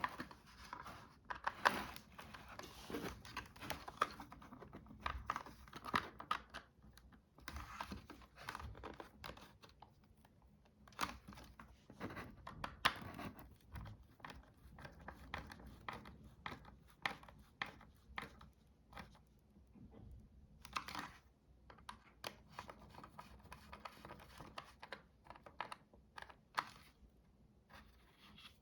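Hands working on the plastic parts of a Dyson V6 vacuum cleaner head: irregular small clicks, scrapes and rustles, with a few sharper clicks.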